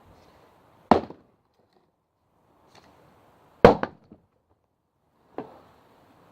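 A 3.5-pound axe chopping into hard thornwood, three sharp chops: one about a second in, the loudest in the middle with two quick smaller knocks right after it, and a lighter one near the end.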